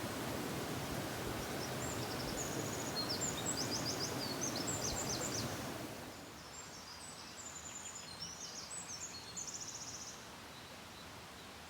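Small songbirds singing high, quick chirps and trills over the steady rush of a stream; the water noise drops away sharply about halfway through, leaving the birdsong over a quiet background.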